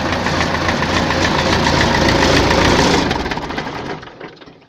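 Diesel tractor engine running with a knock, then shut off about three seconds in and running down to a stop. The owner has ruled out the injection pump and injectors, and suspects the knock comes from a worn fourth cylinder.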